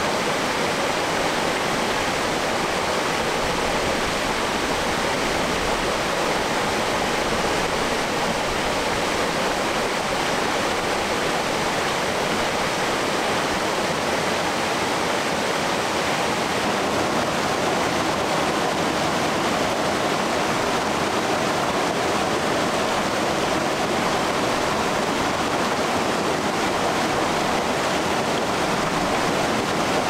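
Mountain valley stream running, a steady, even rush of water with no breaks.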